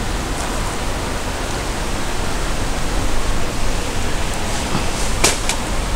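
Steady rushing of river water, an even hiss, with a couple of sharp clicks about five seconds in.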